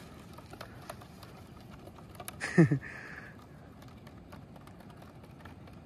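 Faint irregular clicking and ticking as fishing line is worked off a hand-held line spool, with a couple of sharper clicks and then a brief voice-like sound falling in pitch about two and a half seconds in.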